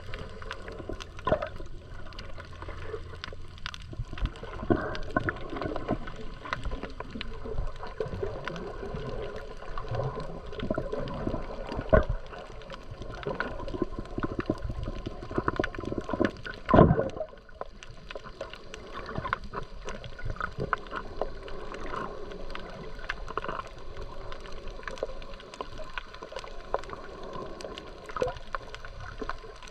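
Water sloshing and gurgling close to the microphone, with irregular small knocks and clicks. Two louder thumps come about twelve and seventeen seconds in.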